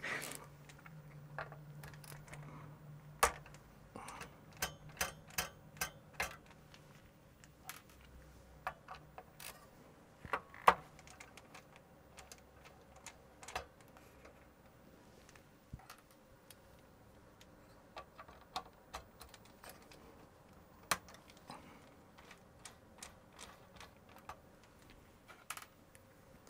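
Scattered small clicks and taps of a screwdriver working at the screws of a Quantum hard drive in a metal computer chassis, with a few sharper knocks about 3, 10 and 21 seconds in. A faint low hum runs under the first several seconds.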